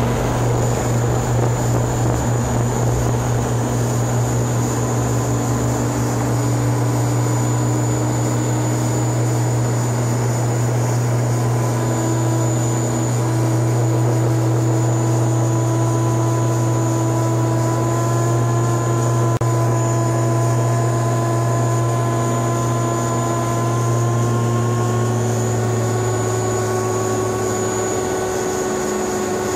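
Cabin drone of an ATR 42-300's Pratt & Whitney PW120 turboprops and propellers at climb power just after lift-off: a loud, steady low propeller hum with fainter whining tones that slowly rise in pitch.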